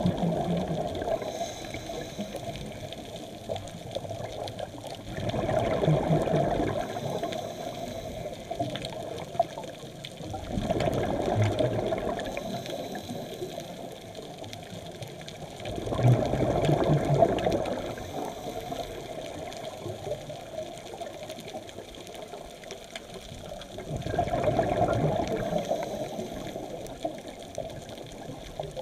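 Scuba diver's breathing heard underwater: a gurgling rush of exhaled bubbles from the regulator about every five to eight seconds, five times, with quieter water noise between breaths.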